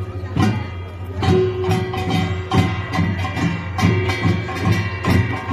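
Korean pungmul percussion ensemble playing a steady rhythm, sharp strikes about two a second with ringing metallic tones held between them.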